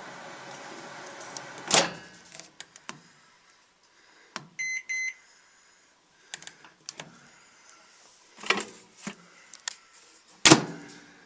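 Microwave oven running with a steady hum, which ends about two seconds in with a loud clunk, followed by clicks and two short electronic beeps. More knocks and clicks follow, with a loud knock near the end; the oven is working after its failed thermostat was replaced.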